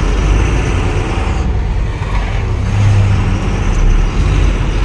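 Truck's diesel engine running steadily at cruising speed, with road and tyre noise, heard from inside the cab as a loud, continuous low rumble.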